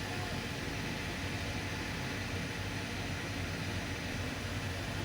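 Hyundai excavator's diesel engine running steadily at an even pitch.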